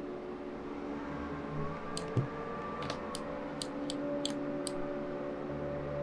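About half a dozen short computer mouse clicks, scattered between two and five seconds in, over a steady background hum.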